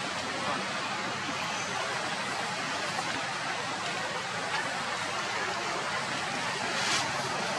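Steady outdoor background hiss, even and unbroken, with one short click near the end.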